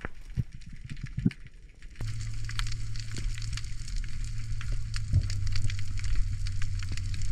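Underwater reef sound heard through a diving camera: dense, irregular crackling clicks. A steady low hum comes in suddenly about two seconds in.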